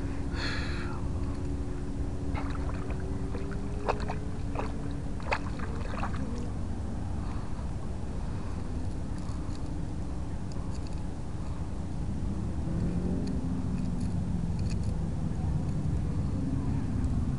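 A boat motor running steadily, its pitch slowly shifting, with a few light clicks as a fishing lure is handled in a mesh landing net.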